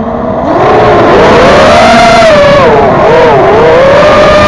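FPV quadcopter's electric motors and propellers whining, recorded by the onboard camera. The pitch starts low, climbs over the first two seconds, dips briefly about three seconds in and climbs again as the throttle changes.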